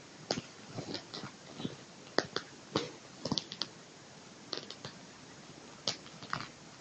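Irregular soft scuffs, rustles and clicks of a tabby kitten wrestling with and play-biting a person's sleeved arm on a fabric sofa cover, with a sharper cluster about two seconds in.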